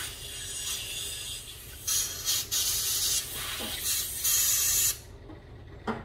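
Compressed air blown from an air-hose blow gun through small carburetor parts to clear out their jets and passages: a steady hiss, then three louder blasts, stopping about five seconds in.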